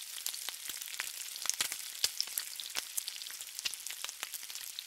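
Bacon frying on a flat top griddle: a steady sizzling hiss with frequent sharp crackles and pops of spitting fat.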